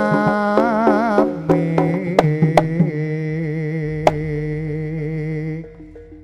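Javanese jaranan ensemble music played live: a long-held melodic line with wavering pitch over sharp drum strokes. The held line drops away about five and a half seconds in.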